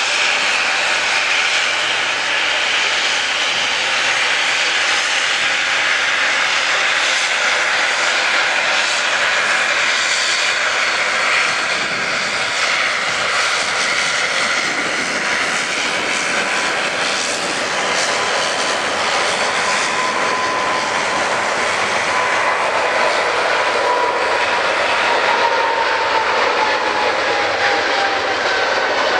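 Airliner engines running loud and steady, with a whine that glides down in pitch over the last several seconds.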